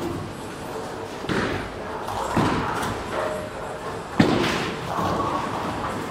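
Bowling alley noise: bowling balls thudding onto the lanes and pins clattering, several separate impacts with the hall's echo, the sharpest about four seconds in.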